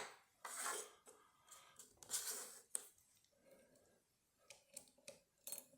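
Faint clicks and short scrapes of small metal lock parts being handled: levers and spacers being lifted out of an opened Banham five-lever mortice lock. There is one sharp click near the middle and a few light ticks near the end.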